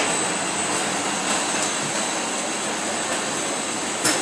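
Shrink-wrap heat tunnel running: a steady rush of air from its hot-air blowers with a thin high whine over it, and one sharp click near the end.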